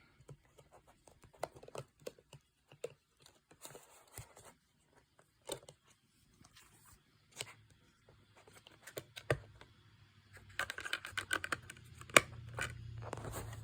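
Hands handling a movie steelbook case and its inserts: scattered light clicks and taps, then denser rustling and scraping of paper and plastic over the last few seconds.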